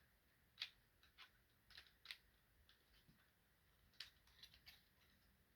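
Near silence with a few faint, short clicks of hard plastic toy parts being handled and pressed together as a TCW-06 upgrade kit piece's tabs are lined up with holes on the Dinobots combiner figure's legs.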